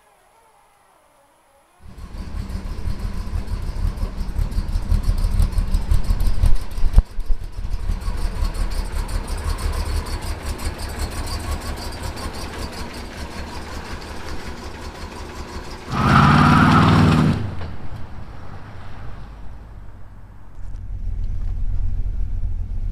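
The engine of a 1977 Chevrolet C10 pickup running. It comes in abruptly about two seconds in and builds in level, then runs steadily. About sixteen seconds in there is a louder burst lasting a second and a half.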